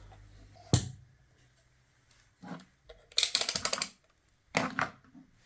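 Small clicks and clatter from handling bench equipment: one sharp click under a second in, then a quick run of rapid small clicks lasting under a second, and a short clatter near the end.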